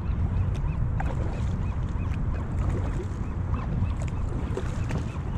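Kayak paddle strokes dipping into and splashing through calm harbour water, under a steady rumble of wind on the microphone.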